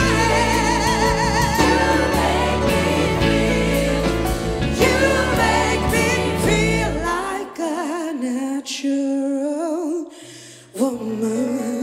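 Live soul-gospel performance: a female lead singer with a concert wind orchestra and gospel choir. About seven seconds in the full band with its bass drops away, leaving the singer's voice with wide vibrato over light accompaniment, and near the end the band comes back in with a sudden accent.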